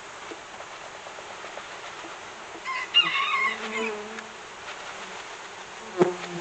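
Honeybees buzzing as a package of bees is shaken out of its wooden box onto the hive frames, the buzzing swelling about three seconds in. A sharp knock comes near the end.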